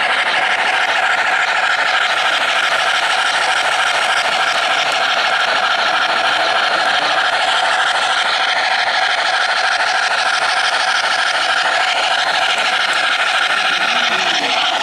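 O-gauge three-rail model train, a steam locomotive pulling passenger cars, running past close by: a steady, even rattling whir of wheels on track and motor that does not change.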